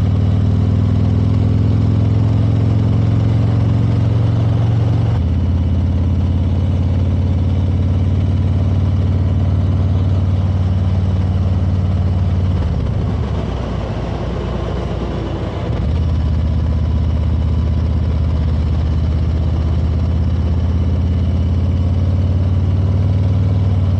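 Touring motorcycle engine running steadily at road speed, heard from a camera mounted on the bike. About five seconds in the engine note steps down in pitch, and about twelve seconds in it falls away and quietens for some three seconds as the throttle eases off, then picks up again.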